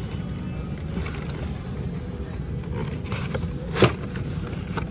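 Steady low rumble of store background noise, with a single sharp knock a little under four seconds in.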